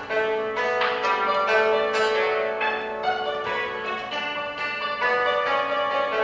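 Yangqin (Chinese hammered dulcimer) played solo: hammers strike its metal strings in a flowing melody of quick notes that ring on and overlap.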